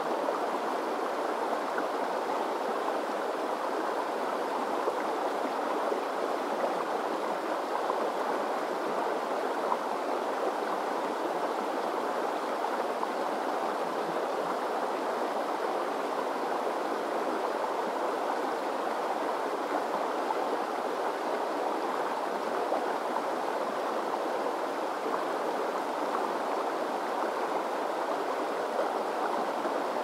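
Shallow mountain river rushing over rocks and stones: a steady, unbroken rush of flowing water.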